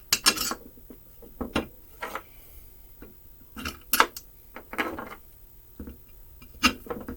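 Metal bolts clinking and rattling in short, irregular clatters as they are handled and set into the bolt holes of a freshly cut engine-case gasket.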